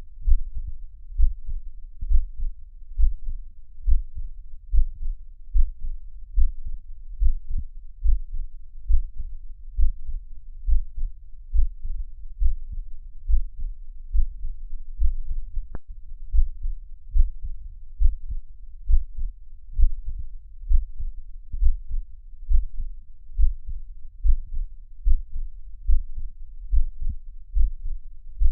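Recorded heartbeat: a steady rhythm of low, dull thumps, a little more than one a second.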